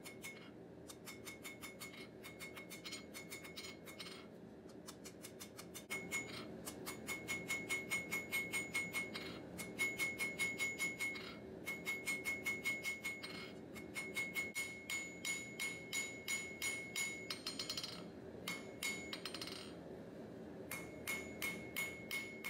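Hand hammer striking red-hot steel bar stock on an anvil in quick runs of about four blows a second, broken by short pauses, with the anvil ringing at each blow. The blows are flattening and planishing the bar's end into a spade-shaped fire-poker tip.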